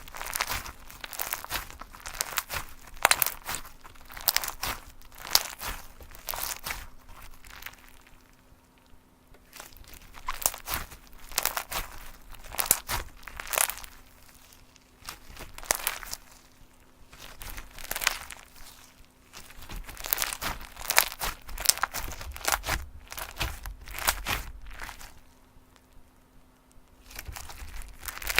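Slime being squished and pressed by hand, giving bursts of crackling, popping clicks with short pauses between handfuls.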